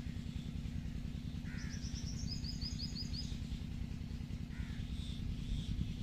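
A steady low rumble, with birds calling over it: a quick run of high chirps through the middle and a few shorter calls.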